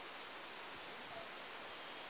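Steady faint hiss of background noise, with no distinct sound standing out.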